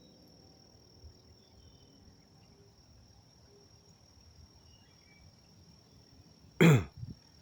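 Crickets trilling: a steady, thin, high insect tone over quiet woods. Near the end, a short, loud voiced call drops sharply in pitch and breaks off.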